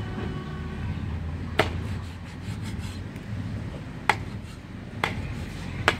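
Four sharp, short knocks or clicks at uneven intervals over a low steady rumble.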